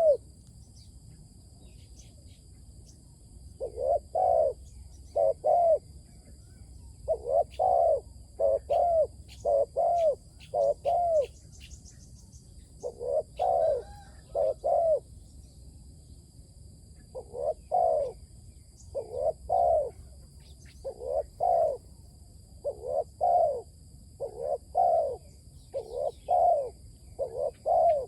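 Decoy spotted dove cooing over and over in short phrases of two to four low coos, with pauses of a second or more between phrases. A faint steady high insect buzz runs behind.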